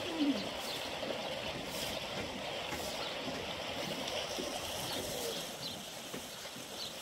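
Steady rush of flowing water, with a few faint bird chirps.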